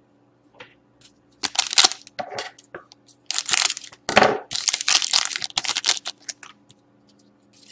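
Foil wrapper of a Totally Certified hockey card pack crinkling and tearing as it is handled and ripped open, in a run of sharp rustling bursts over several seconds.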